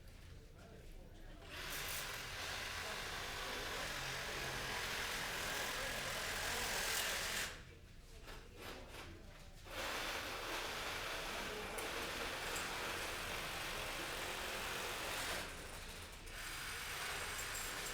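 Electric reciprocating-blade saw cutting through a wooden windowsill. It runs steadily for about six seconds, stops for about two, then runs again with a brief dip near the end.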